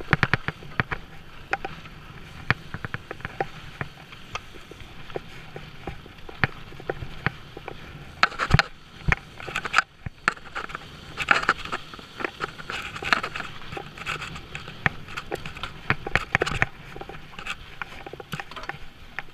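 Mountain bike tyres rolling fast over dry, rough dirt and stones, with a constant run of rattles and sharp knocks from the bike over bumps, heaviest in a few rough stretches about halfway through.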